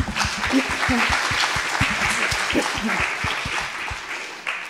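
Audience applauding, the clapping gradually dying away near the end.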